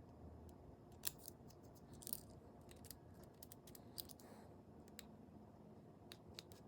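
Faint, scattered small clicks and a brief scrape of a thin prying tool working against the plastic and metal of an iPod nano 5th generation, lifting out its click wheel.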